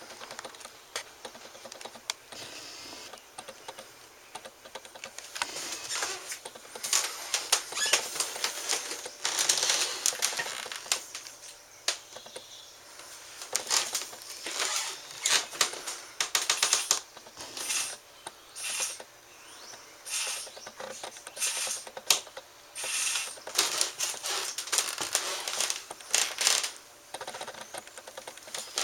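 Remote-control toy spider walking, its motor and plastic legs making rapid clicking and clattering in bursts of a few seconds with short pauses. The bursts grow denser after a quieter first few seconds.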